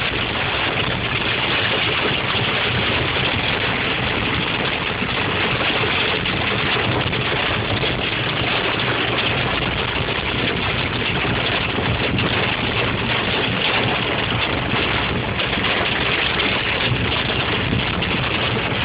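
Rain and small hail pelting the roof and windscreen of a moving car, a dense, steady hiss with tyre noise on the wet road underneath, heard from inside the cabin.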